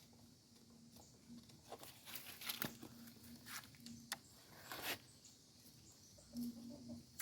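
Faint scattered clicks and rustling, busiest in the middle, over a low steady hum.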